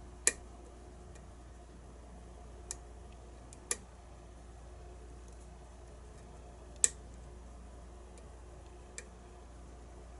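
Sharp metallic clicks of lock picks working the pins of a pin-tumbler challenge lock: five separate clicks spaced a second or more apart, the loudest near the start and about two-thirds of the way through.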